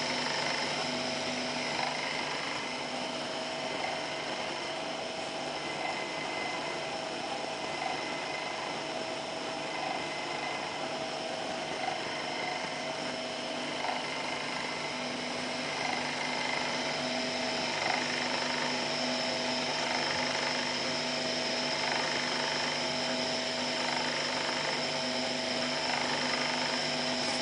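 Small electric motor and worm-gear reducer driving a converted hand-cranked screw oil press, running at a steady pitch while it cold-presses walnut kernels. A faint click comes about every two seconds.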